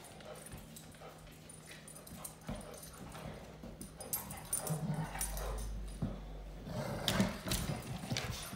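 Goldendoodles play-wrestling on a leather sofa: scuffling and knocks with short dog vocal sounds, loudest about seven seconds in.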